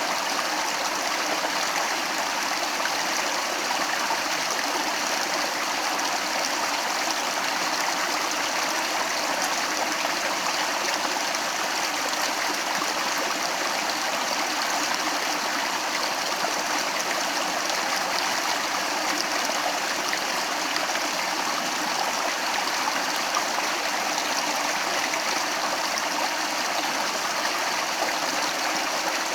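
Stream water flowing and splashing steadily, an even rushing with no change.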